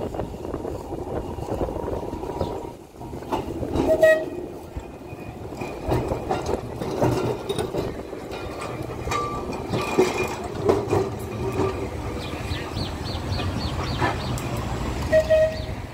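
1934 English Electric boat tram rolling slowly past at close range on curved street track, its wheels clanking and knocking on the rails over a steady running hum. Two short horn-like tones sound, about 4 seconds in and again near the end.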